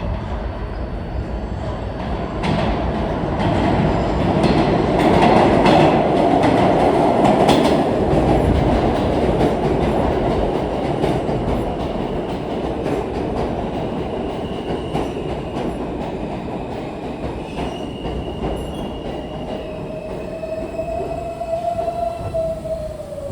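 R160 subway train running through the station, wheels clacking over rail joints. The noise is loudest about five to eight seconds in, then eases. In the second half a high tone sounds, rising and then dipping near the end.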